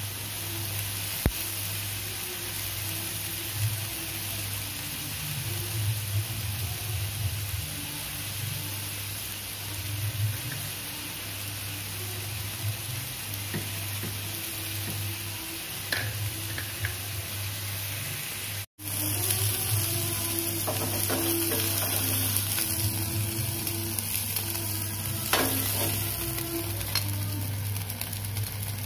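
Chicken satay sizzling steadily on a hot stovetop grill pan, with a low hum underneath and a few light clicks. The sound cuts out for an instant about two-thirds of the way through.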